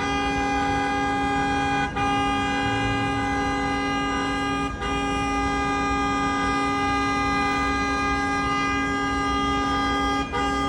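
Vehicle horn held down in long, steady blasts at one unchanging pitch, over street traffic, broken only by brief gaps about two seconds, five seconds and ten seconds in.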